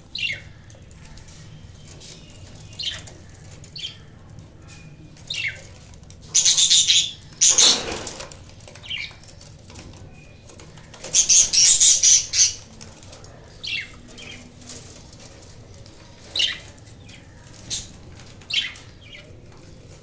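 Budgerigars giving short, downward-sliding chirps, with two loud spells of wing fluttering, about a third of the way in and again just past the middle.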